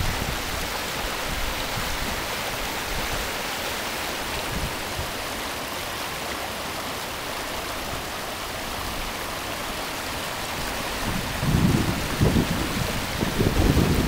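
River in full flood rushing over rocks with a steady, even roar of turbulent water. From about eleven seconds in, wind gusts buffet the microphone.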